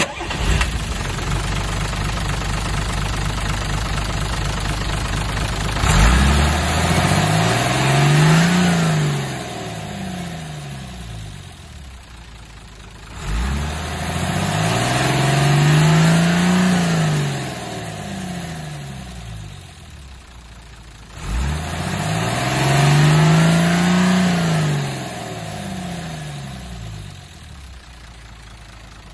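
A Hino H07D inline-six diesel truck engine idling steadily, then revved three times. Each time it rises smoothly in pitch over two or three seconds and sinks back to idle.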